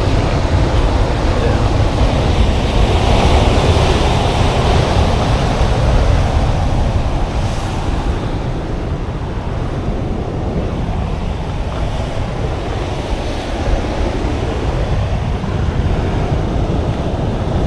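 Ocean surf breaking on the rocks below a sea cliff, a steady rush of churning water, with wind buffeting the microphone.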